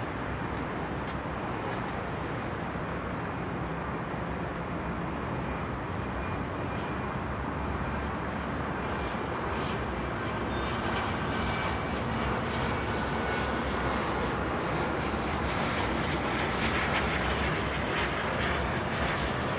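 Jet airliner engines running at a distance: a steady rumble with a faint high whine that grows somewhat louder over the second half.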